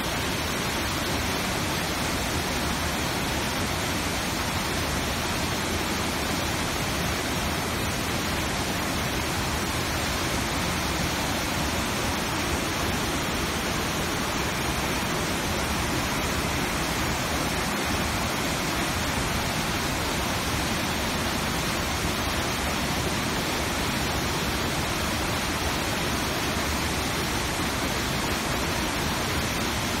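Whitewater river rapids rushing, a loud, steady roar of churning water.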